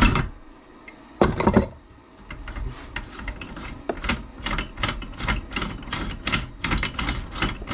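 Ratchet wrench clicking in an even run, about three clicks a second, as the differential's pinion nut is worked loose, after a couple of sharp knocks from the tools near the start.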